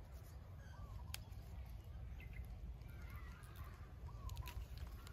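Faint bird calls, a few short chirps, over a steady low rumble. A couple of sharp snaps come as young wild sweet leaf (pak wan) shoots are pinched off by hand.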